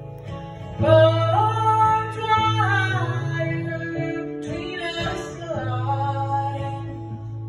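A woman singing live, accompanying herself on acoustic guitar; her voice comes in about a second in with long, held notes over the guitar.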